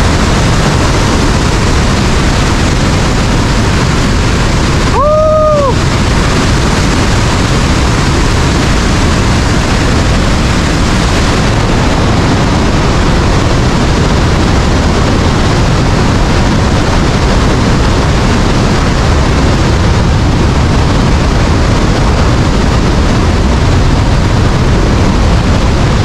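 Victoria Falls at peak flow: a loud, steady roar of falling water and drenching spray, heaviest in the low end. About five seconds in, a brief high cry rises and falls.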